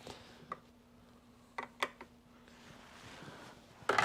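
A few light clicks and knocks from handling the parts of an upright vacuum cleaner under repair: a pair near the middle and the loudest one near the end.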